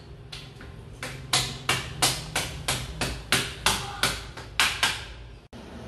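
Hammer knocking cable-clip nails into the wall to fasten an air conditioner's power wire: about a dozen sharp knocks, roughly three a second, stopping about five seconds in.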